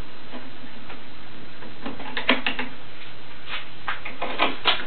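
Metal woodworking clamps being re-tightened on a glued-up wooden window frame: scattered light clicks and metallic taps from the clamp screws and handles, a cluster about two seconds in and more near the end, over a steady background hiss.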